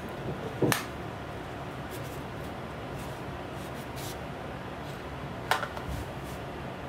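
Plastic flip lid of a Mi True Wireless Earphones 2C charging case snapping shut with a sharp click, then a light knock about five seconds later as the case is set down on a table, over a steady background hum.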